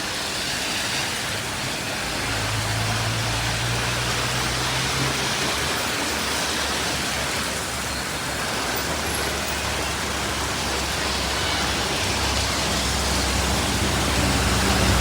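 Steady hiss of rain, with the low hum of vehicle engines on the road, one from about two seconds in and another growing louder near the end.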